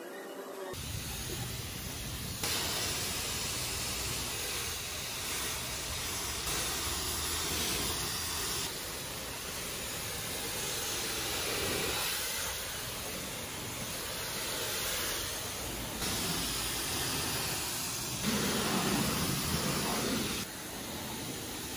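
Self-service car wash high-pressure wand spraying water onto a car's body, a steady hiss of spray with water spattering as the soap foam is rinsed off. The hiss jumps up or down in level every few seconds.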